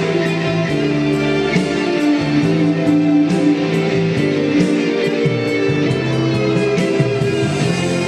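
Guitar and electronic keyboard playing an instrumental passage together, picked guitar notes over held keyboard chords.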